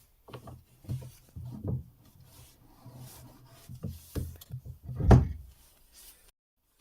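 Irregular knocks and scrapes from objects being handled on a wooden surface, the loudest knock about five seconds in. The sound cuts off abruptly shortly before the end.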